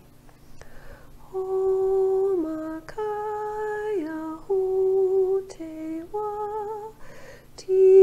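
A woman singing slow, wordless light-language syllables, starting about a second in: long held notes that each drop a step in pitch at the end, one phrase after another with short gaps.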